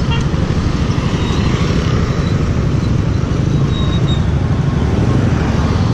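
Yamaha Mio Soul 125 single-cylinder scooter engine running at a standstill, then pulling away onto the road, with road traffic passing.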